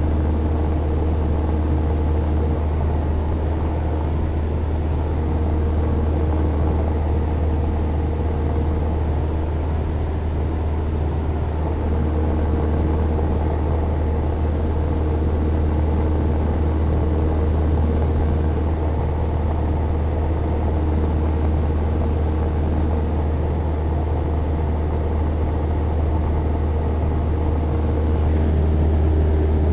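Cessna 172N's four-cylinder Lycoming engine and two-blade propeller running steadily in flight, a low, even drone heard from inside the cabin.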